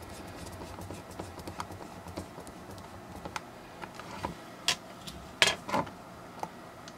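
Small screwdriver driving a screw into a plastic calculator back case: a run of light clicks and scrapes, with a few sharper plastic clicks about five seconds in as the case and screw are handled.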